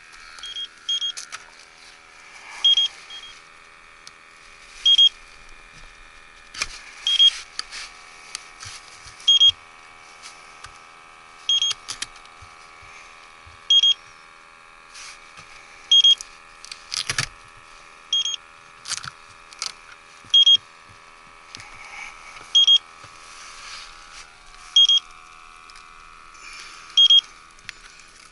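A short, high-pitched electronic beep repeating about every two seconds over a steady hum, with scattered clicks and handling knocks.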